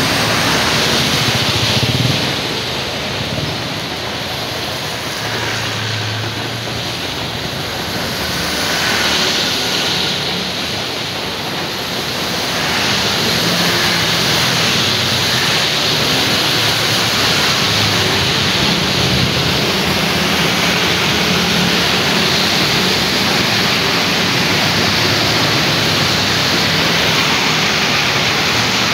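Steady hiss of rain and wet-road traffic: motor scooters and other vehicles passing on rain-soaked asphalt, tyres swishing and small engines humming. It dips a little for several seconds, then rises again.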